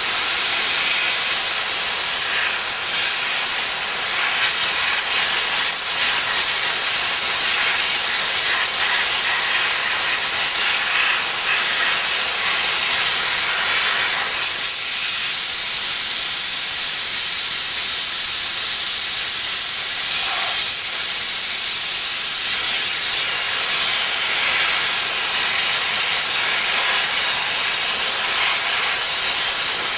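Weidner dry steam cleaner's lance blowing a continuous jet of steam against a forklift's wheel and tyre: a steady, high hiss that eases off slightly for a moment midway.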